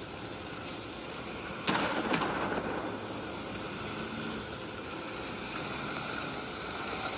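Large building fire burning with a steady rushing crackle; a sudden loud crack about 1.7 s in, followed by a smaller one half a second later.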